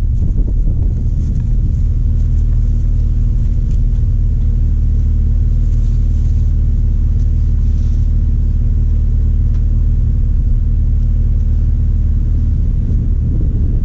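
Jeep Wrangler TJ's 4.0 inline-six engine idling steadily, a low even hum.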